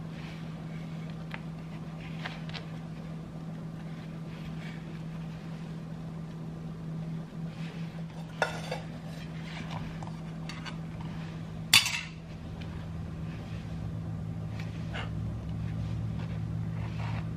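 Kitchen utensils handled at a cutting board: light taps and clinks of a knife, spoon and plate, with two sharper clinks about eight and twelve seconds in, over a steady low hum.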